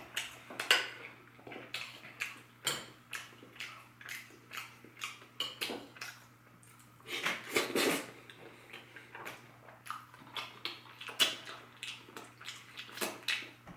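A metal spoon clinking and scraping on a ceramic plate in a run of short, irregular clicks while someone eats, with mouth sounds from eating soft pie and ice cream.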